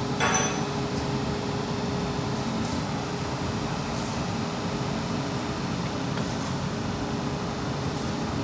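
Steady machine hum with a faint held tone, with a few faint light clicks.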